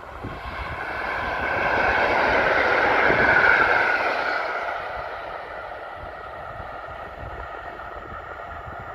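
EN57AKŁ electric multiple unit passing by on the track: its running noise swells to a peak about three and a half seconds in, then fades away.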